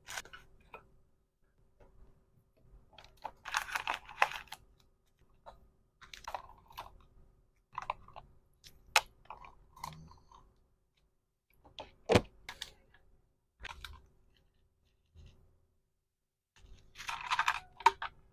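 Hands handling packaging material: crinkling bursts a few seconds in and again near the end, with sharp clicks and small taps in between.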